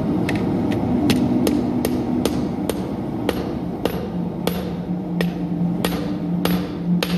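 Hand hammer striking hot steel on an anvil while forging a knife blade from an old file: a steady run of sharp, ringing blows, about two to three a second, over a steady low hum.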